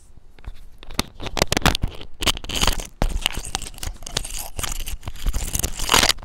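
Clip-on lavalier microphone being handled and fastened onto a shirt: close rustling and scraping against the fabric, with many sharp clicks from the clip. The rustle is loudest near the end.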